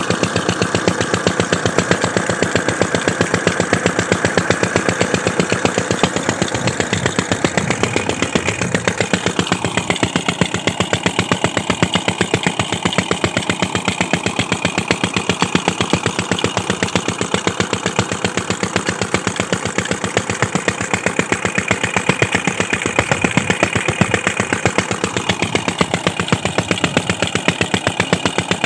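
16 hp single-cylinder 'Peter' diesel engine running a tubewell pump, with a steady, rapid, even exhaust beat. It is under pumping load but not straining.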